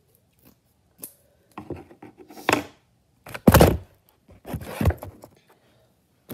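Irregular scrapes, rustles and knocks from hands handling things right at the microphone, the loudest a heavy bump about three and a half seconds in.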